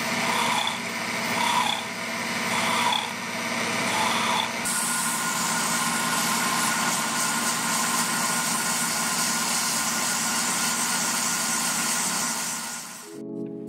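Wood lathe running with a steady hum while a hand tool scrapes the spinning wooden vase in repeated strokes a little under a second apart. About four and a half seconds in, this gives way to a steadier, brighter hiss of sanding against the spinning wood.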